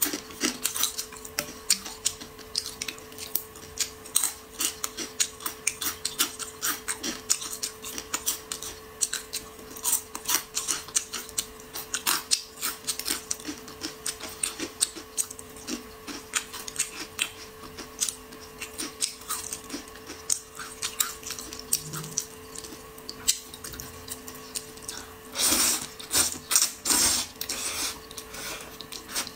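Close-miked mukbang eating of spicy noodles: a steady run of small wet chewing clicks and smacks, then near the end a couple of seconds of loud noodle slurping. A faint steady hum sits underneath.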